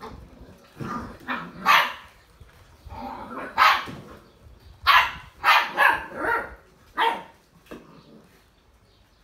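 Six-week-old Old English Sheepdog puppies barking in play: a string of short barks in irregular clusters, some overlapping, dying away about seven seconds in.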